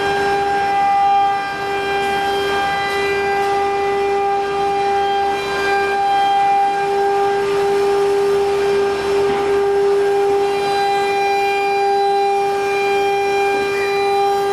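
CNC wood router running with a steady, high-pitched machine whine that holds one pitch, with faint rushes of noise now and then.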